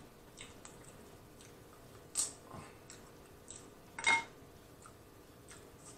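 Close-miked eating sounds: fingers picking at king crab and fried chicken, with small wet squishes and clicks and two sharper cracks or smacks, about two and four seconds in.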